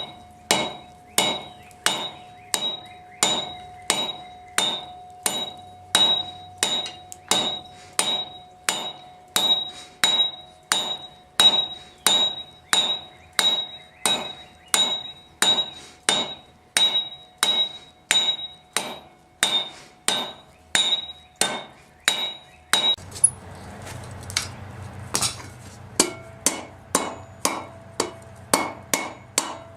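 Hand hammer striking hot steel on an anvil in a steady rhythm of about two blows a second, each blow ringing, while forging the reins of a pair of blacksmith's tongs. The blows stop for about three seconds near the end under a steady low rush, then start again.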